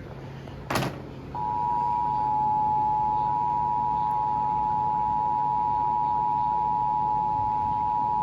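Emergency Alert System attention signal: a short click, then about a second in the steady two-tone alert (853 and 960 Hz sounded together) starts and holds. It heralds a broadcast severe thunderstorm warning.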